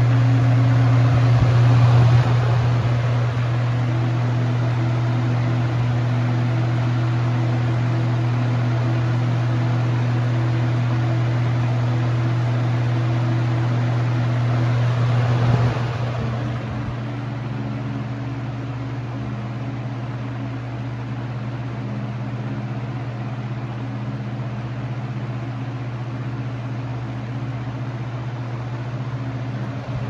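20-inch box fan with a McMillan shaded-pole motor running on high with a cheaper, flimsier blade set: a steady rush of air over a steady low motor hum. The air noise drops somewhat about halfway through while the hum carries on.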